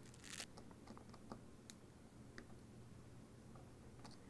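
Faint small clicks and a short scrape of needle-nose pliers and thin wire being worked against a miniature slide switch, over a quiet room with a low hum.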